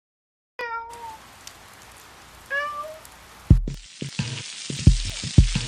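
Two short pitched animal calls about two seconds apart, the second rising. After an abrupt change, a steadier hiss with several low, dull thumps.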